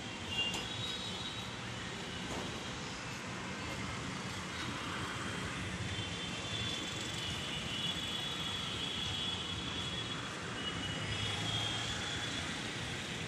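Steady vehicle noise: a continuous rumble and hiss with no pauses, with faint high-pitched tones coming and going over it.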